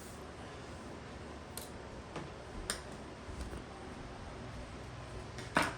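A few scattered light clicks and ticks of a small screw and screwdriver on a laptop's plastic case as a screw is fitted, the loudest click near the end.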